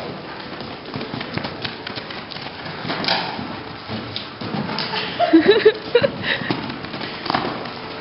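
Horse's hooves thudding on soft arena sand at a lope, a run of irregular taps and thumps. About five to six seconds in, a few short pitched yelps are the loudest sounds.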